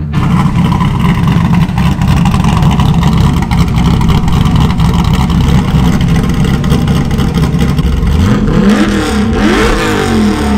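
A Chevy C10 pickup's cammed 6.0-litre LQ9 V8 runs hard and loud at high revs. About eight seconds in, the engine revs up sharply twice in quick succession.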